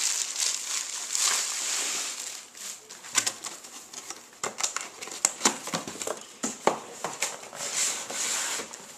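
Cardboard box being handled: flaps and sides scraping and rubbing as it is closed and slid, then a run of light taps and knocks from about three seconds in, with another short scrape near the end.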